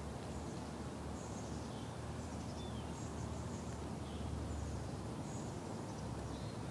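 Faint, short, high-pitched bird chirps scattered through, over a steady low background rumble.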